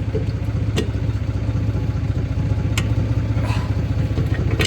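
Toyota pickup's engine idling steadily, a low even pulsing hum, with a few sharp metallic clicks over it.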